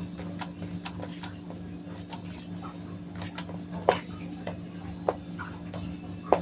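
Kitchen cooking sounds: a steady low hum with small ticks and crackles throughout, and three sharper clinks of utensils or cookware, about four, five and six seconds in.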